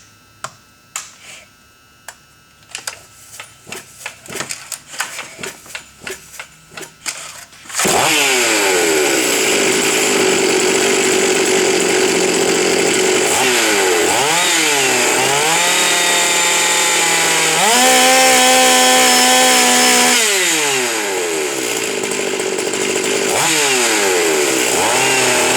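A few seconds of clicks and rattles, then a modified Stihl MS 460 two-stroke chainsaw (ported, decked, timing changed, buckshot muffler) starts about eight seconds in and runs loud. It is blipped up and down several times and held at a high rev for a few seconds.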